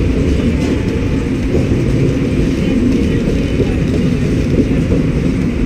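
Narrow-gauge park train running, heard from an open wooden passenger carriage: a steady low rumble and rattle of the wheels and carriage under way.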